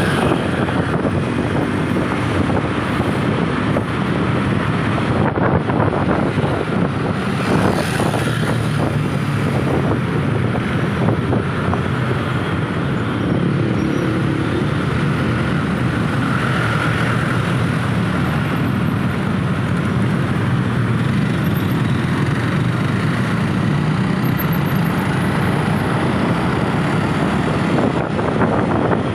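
Steady road traffic noise: vehicle engines running in a slow traffic queue, with some wind on the microphone.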